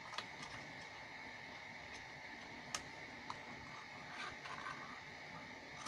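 A few faint, sharp snips of scissors cutting the corners of a cardstock strip at an angle, the clearest a little under three seconds in, over a faint steady background hum.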